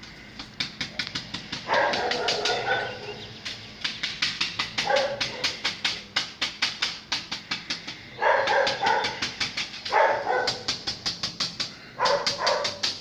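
Big dog barking in short bouts every couple of seconds, over a fast, steady clicking of about five ticks a second.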